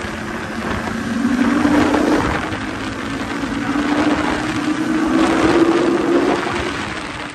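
Motorcycle engine under way, its note climbing steadily as the bike accelerates, then dropping as the throttle eases off near the end, with wind noise over it.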